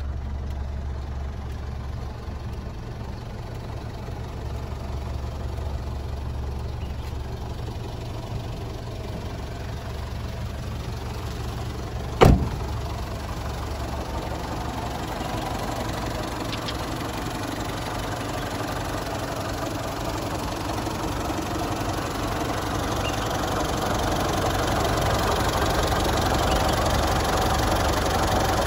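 Mitsubishi Strada Triton GLS 4x4's diesel engine idling steadily, with one sharp thump about twelve seconds in. The engine sound grows a little louder toward the end.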